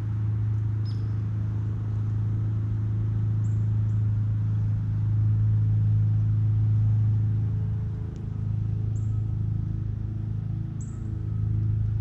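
A steady low motor hum, like an engine running, swelling slightly in the middle and dipping briefly about eight seconds in. A few short, high bird chips sound over it, three or four times.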